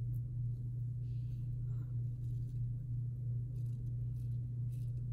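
Open-comb double-edge safety razor scraping through lathered stubble on the neck in a few short, faint strokes, over a steady low hum.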